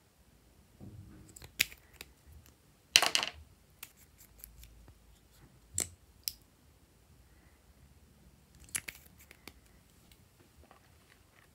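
Plastic lip gloss tubes and caps being handled: a handful of separate sharp plastic clicks and taps, the loudest and longest about three seconds in.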